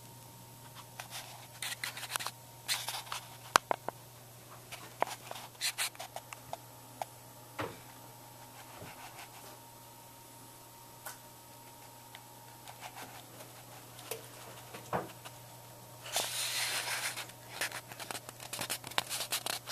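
Handling noise from a handheld camcorder: scattered clicks and short scratches of fingers shifting on the camera body, with a longer rubbing scrape about sixteen seconds in, over a steady low hum.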